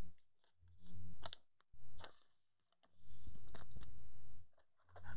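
Light clicks of a trading card being handled over a countertop. Under them a low electrical buzz cuts in and out several times.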